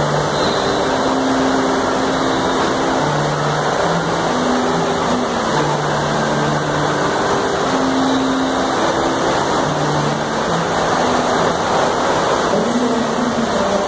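Steady rush of water pouring out of a water-slide tube into a splash pool.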